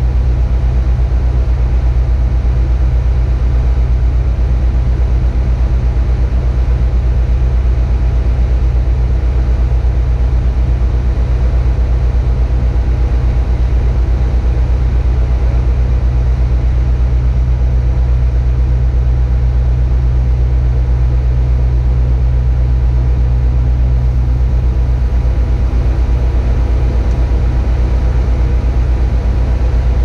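Tadano 180G-5 crane's diesel engine running steadily, heard from inside the operator's cab as a loud, deep drone with a steady hum above it.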